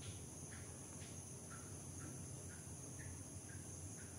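Faint background ambience: a steady high-pitched drone and a low hum, with short faint chirps about twice a second.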